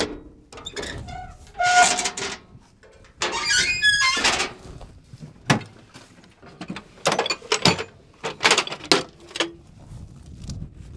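Hammer work on metal farm equipment: irregular metal knocks and clanks mixed with a few short squeals and scrapes.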